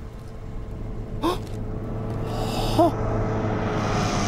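A car drives up, its engine hum steady and growing louder. Two short vocal gasps cut in over it, and a brief hiss comes about halfway.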